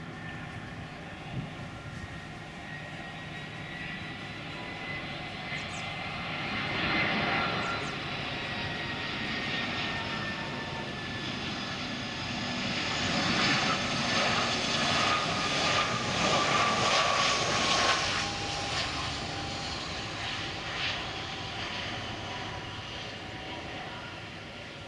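Airbus A319-112 with CFM56 turbofan engines passing by. The engine whine and rush swell to a peak and then fade, with the whine slowly falling in pitch.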